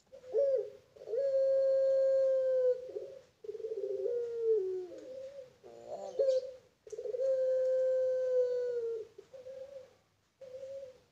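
Puter pelung, a domestic ringneck (Barbary) dove bred for its long drawn call, cooing: two long coos of about two seconds each, held on one pitch and sagging slightly at the end, with shorter broken coos between them.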